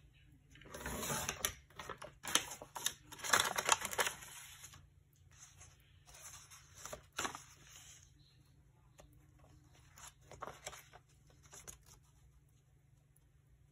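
Paper and craft materials being handled on a desk: irregular rustling and crinkling, with the loudest bursts in the first few seconds and a few softer ones later.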